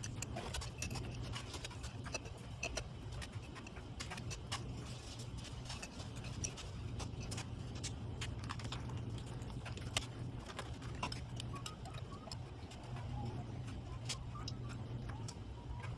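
Scattered small metal clicks and clinks of hand tools and carburetor fittings being worked, over a steady low hum.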